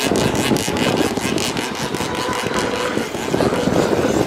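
Two-stroke gasoline engine of a radio-controlled racing boat running steadily at high revs while the boat planes across the water.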